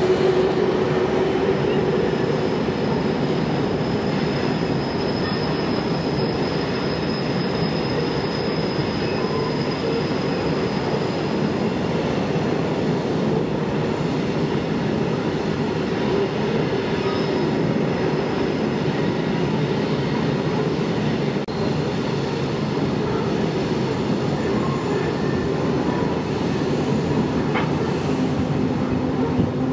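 Freight train of covered hopper cars rolling over steel rails, a steady rumble of wheels with a thin high wheel squeal from the curve between about four and twelve seconds in.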